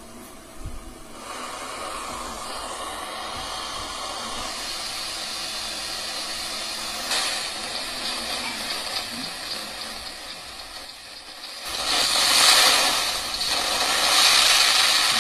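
Steady hiss of FM radio static from a smartphone's FM radio tuned to 91.3 MHz, receiving a homemade transistor FM transmitter. The hiss swells louder about twelve seconds in, while the transmitter circuit is being handled.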